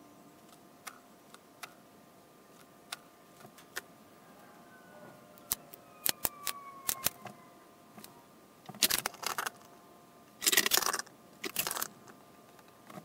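Small hardwood blocks being set down and shifted on a plywood board: sharp separate clicks and taps, coming faster past the middle, then three louder rattling, scraping bursts near the end. A faint steady hum runs underneath.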